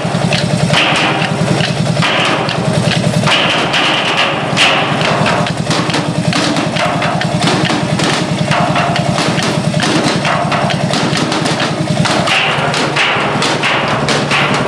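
Several people drumming on steel oil drums with wooden sticks in rapid, continuous rhythm, over the low, steady beat of a stationary engine running.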